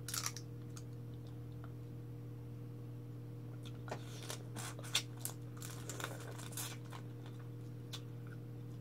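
Close-up mouth sounds of eating cooked crab by hand: sharp clicks and crackles of shell being bitten, cracked and sucked, one right at the start and a busier run about halfway through. A steady low hum lies under it.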